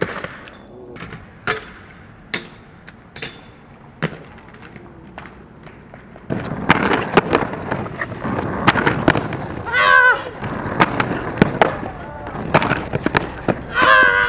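Skateboard: several sharp board clacks and impacts, then from about six seconds in loud wheels rolling over rough ground with repeated clacks. A brief voice cuts in twice, about ten seconds in and near the end.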